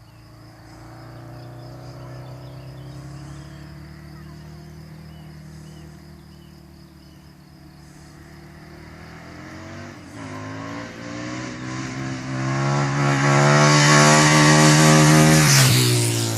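Husqvarna Nuda 900 R's parallel-twin engine approaching at speed, its note growing steadily louder with a brief dip in pitch about ten seconds in, then passing close by near the end as the pitch drops suddenly.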